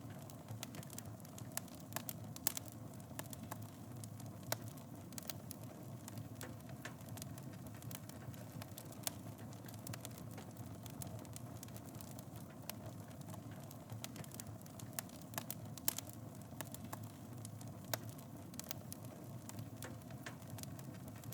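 Fire burning in a fireplace: a steady low rumble of flames with irregular crackles and sharp pops, a few of them louder than the rest.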